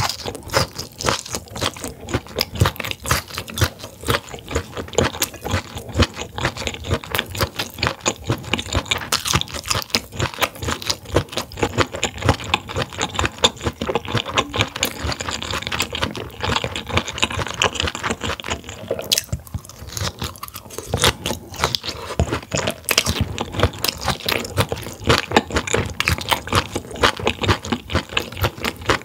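Close-miked chewing and crunching of grilled mullet stomach and grilled vegetables: wet, crunchy bites and chews, repeating irregularly and quickly.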